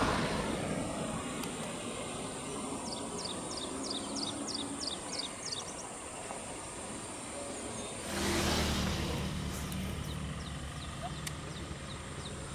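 Roadside traffic: a vehicle fades away at the start and another passes about eight seconds in, its low rumble lingering for a few seconds. A steady high whine runs underneath, and a quick run of high descending chirps sounds a few seconds in.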